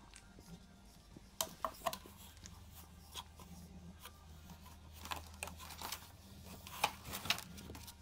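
Scattered sharp clicks and taps, a few close together about a second and a half in and more between five and seven and a half seconds, over a low steady hum.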